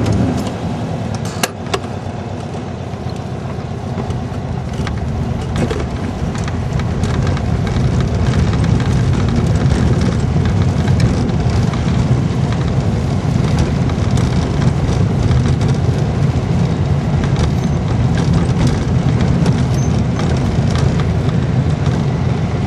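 Car driving on an unpaved dirt road, heard from inside: a steady rumble of engine and tyres with frequent small knocks and rattles, growing louder over the first several seconds.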